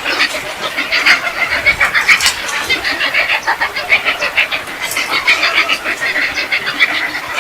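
A flock of large birds calling at a tree roost: a dense, continuous chatter of many short overlapping squawks.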